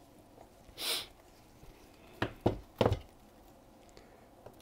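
An opened aluminium MacBook Pro being handled on the work mat: a short scraping rustle about a second in, then three quick knocks about a third of a second apart as the laptop is shifted and set down.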